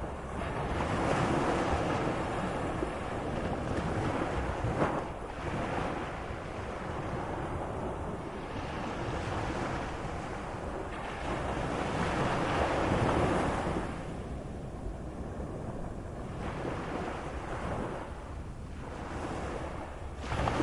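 Waves of a moderate sea breaking and washing in. The surf noise swells and falls back every few seconds, with a brief sharper splash about five seconds in.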